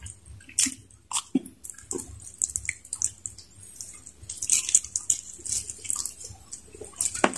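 Close-up eating sounds: wet chewing, smacking and squelching as saucy chicken kaldereta and fried chicken fillet are torn by hand and bitten, in scattered short clicks and wet bursts, with one sharp click near the end.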